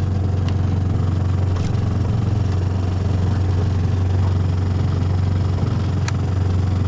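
Boat's outboard motor running steadily, a constant low hum with no change in speed.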